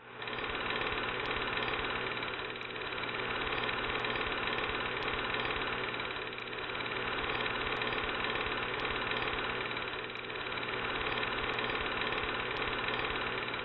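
Steady hiss over a constant low hum, swelling and fading slowly about every four seconds, with faint scattered crackles: the background noise of an old film's soundtrack with no dialogue or music on it.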